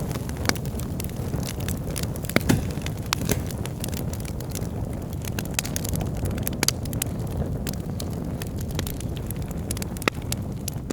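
Wood fire burning in a fireplace: a steady low rush of flame with frequent sharp crackles from the logs, and a few louder pops scattered through.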